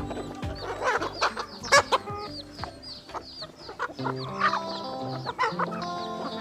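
Chickens clucking, with many short high chirping calls, over background music with held notes.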